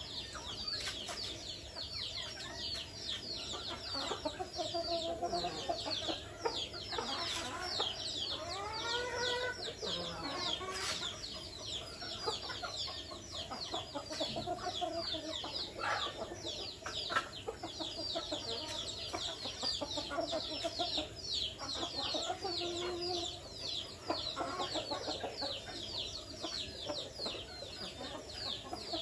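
A flock of free-ranging chickens clucking and calling, with lower hen and rooster calls coming and going. A dense, unbroken chorus of high, quickly falling chirps runs over them.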